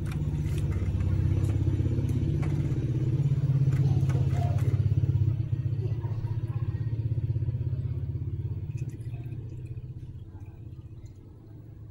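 A motorcycle engine running with a steady low pulse, fading away over the second half.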